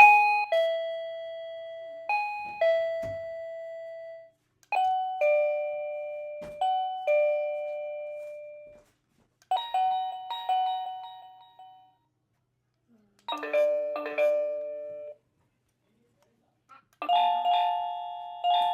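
Wireless doorbell receiver playing its different chime tunes one after another: two-note ding-dongs and short melodies, at different pitches, each ringing out and fading before the next.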